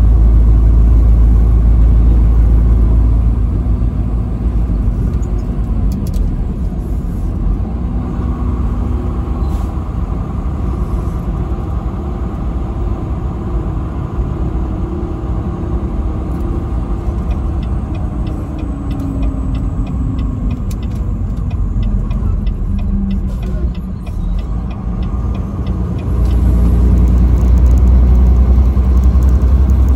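Vehicle engine and road noise while driving on the highway: a heavy low rumble that eases a few seconds in and comes back strongly near the end, with a steady engine tone in between that slowly falls in pitch.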